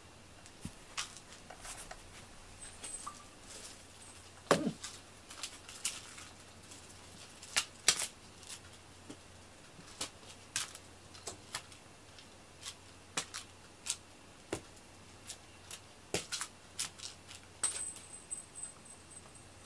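Scattered light clicks and taps, irregular and about one or two a second, from a cat-teaser wand being flicked about during play with a cat.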